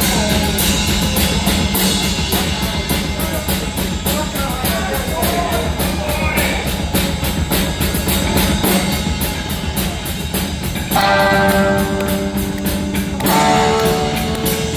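Heavy metal band playing live without vocals: distorted electric guitar over a drum kit keeping a steady, even beat. About eleven seconds in, held guitar chords ring out over the drums.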